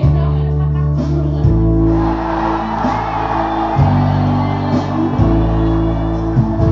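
Karaoke backing track playing loudly, its bass chords changing a few times, with men singing and shouting along into microphones.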